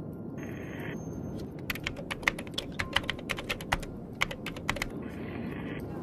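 Rapid, irregular computer-keyboard typing clicks lasting about three and a half seconds. A short burst of hiss comes just before them and another just after.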